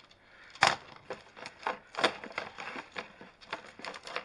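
Plastic magnetic building tiles clacking and clicking against each other as they are handled and snapped together: a sharp clack about two-thirds of a second in, another near two seconds, and smaller clicks throughout.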